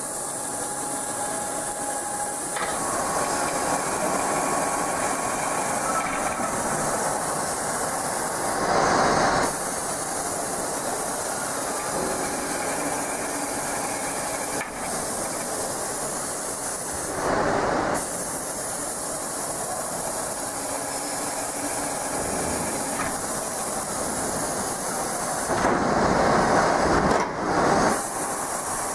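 Industrial drilling machine running with a steady hiss, with three short louder surges about nine, seventeen and twenty-six seconds in.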